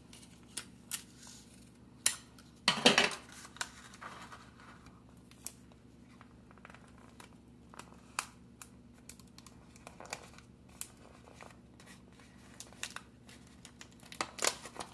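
Adhesive tape being torn off and pressed around a straw where it passes through a paper cone, with paper crinkling and rustling under the hands. The loudest noise comes about three seconds in, another near the end, with small scattered rustles between.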